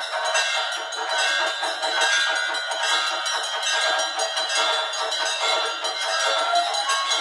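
Bells ringing fast and without a break, many overlapping strokes, as they are rung during a Hindu arati lamp offering.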